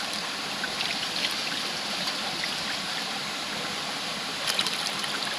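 River water flowing steadily, with a few brief sharp ticks near the end.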